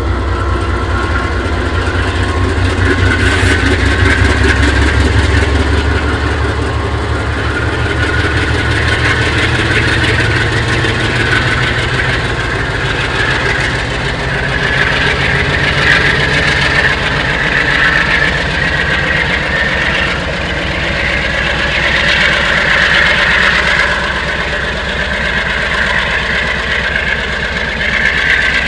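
GE AC4400CW diesel locomotive's 16-cylinder 7FDL engine working hard after throttling up: a steady deep rumble with a higher whine over it that swells and eases several times.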